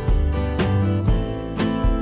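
Music with a strummed guitar sound and a steady beat of about two beats a second.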